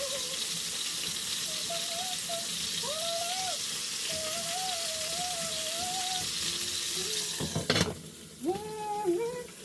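Chicken wings frying in hot oil, a steady sizzle, with someone humming a tune over it. A sharp clatter about seven and a half seconds in, after which the sizzle is quieter.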